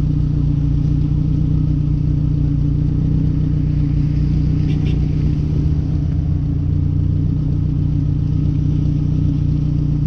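Chevy S10 pickup's engine idling steadily, heard from inside the cab.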